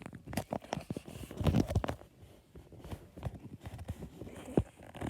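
Pop-it fidget toy being pressed: a run of soft, irregular clicks and pops from its bubbles, denser about a second and a half in, with one sharper click near the end.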